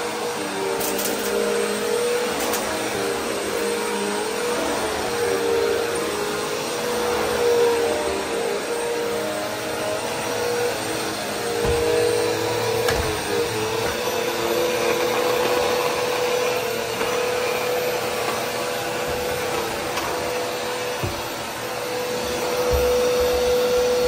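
Bagless upright vacuum cleaner running over carpet. It is pushed back and forth, its motor whine wavering slightly in pitch with the strokes and then holding steadier, with a few low knocks as it bumps along.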